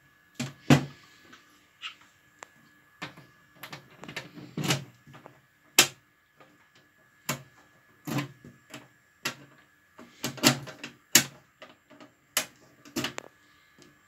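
Irregular clicks and knocks from the push buttons and key switches of a Chubb Zonemaster 204 fire alarm control panel being handled, about a dozen in all and unevenly spaced.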